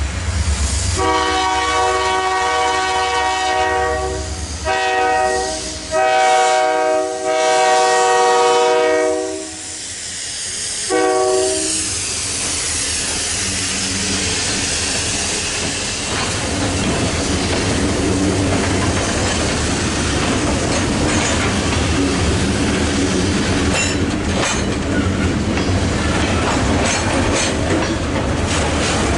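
Missouri & Northern Arkansas freight train sounding its multi-chime air horn for the grade crossing in several blasts over the first eleven seconds or so, the last one short. Then the locomotives pass and the hopper cars roll by steadily, with wheels clicking over the rail joints near the end.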